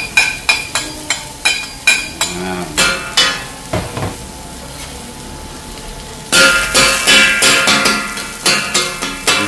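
Metal spatulas tapping and scraping on a steel flat-top griddle while minced garlic sautés in hot oil, with a quick run of taps for the first few seconds. The sizzling swells sharply about six seconds in. Background music plays underneath.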